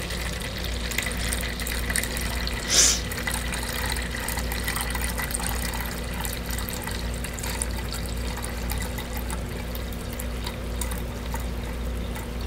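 Thin stream of water pouring from a plastic pitcher into a plastic measuring pitcher, a steady trickle as the pitcher fills. A brief louder noise about three seconds in.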